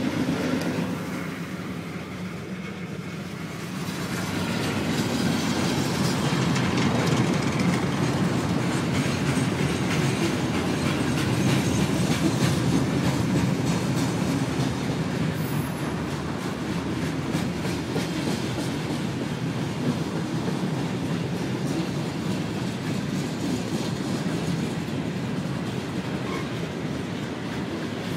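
Freight train's hopper and tank cars rolling past at a grade crossing: a steady rumble with wheels clicking over the rail joints. It is quieter for the first few seconds, then grows louder about four seconds in.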